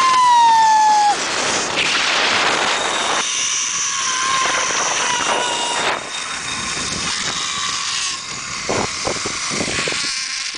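Zip-line pulley trolley running on the steel cable: a high whine that falls slightly in pitch and stops about a second in, then comes back fainter for a few seconds, over a steady rush of wind.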